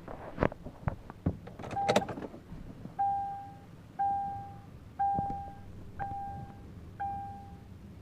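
A few clicks and knocks in the first two seconds, then a vehicle warning chime: five steady beeps, one each second.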